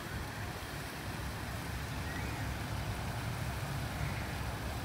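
Steady outdoor rushing noise over a low, uneven rumble, the ambience beside a koi pond with a falling waterfall.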